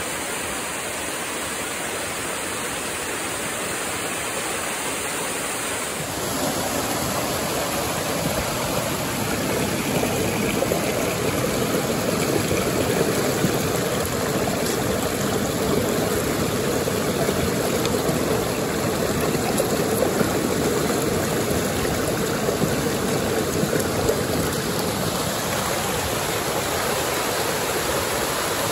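Steady rush of a small creek waterfall cascading over rocks. It grows louder and fuller about six seconds in.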